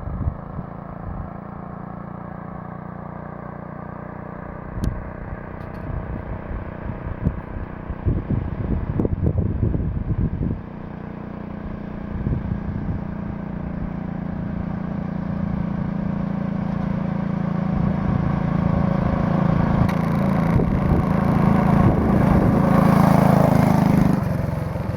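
Small muffled gasoline engine on a ride-on vehicle running at part throttle, growing steadily louder as it approaches, then dropping off near the end as it passes. A few clattering knocks come partway through. The owner thinks the engine is still running a little rich, as it breaks up slightly.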